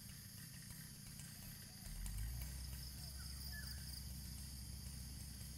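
Quiet outdoor ambience: a steady high drone, a low rumble that grows louder about two seconds in, and a few faint chirps.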